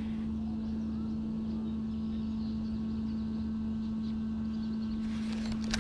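A steady low mechanical hum holding one pitch, with faint bird chirps above it and a few sharp clicks right at the end.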